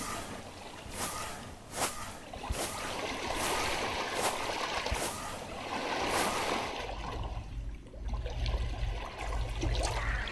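Shallow seawater lapping and splashing, with short sharp splashes about once a second. About seven seconds in, the splashes give way to a low wind rumble on the microphone.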